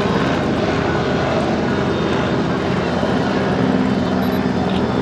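Steady, loud drone of engines with no break.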